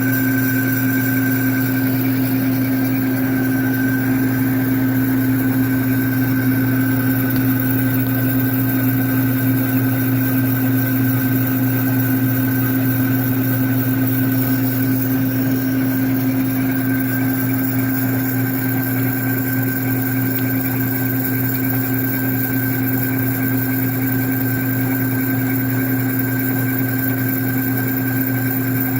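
Metal lathe running steadily while boring out a bushing with a light cut of five thousandths of an inch: an even hum with a thin high whine over it.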